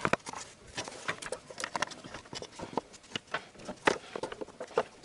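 Plastic upper timing belt cover of a Honda D17A engine being handled and worked into place by hand: irregular light clicks and knocks of plastic against the engine, the loudest a little before four seconds in.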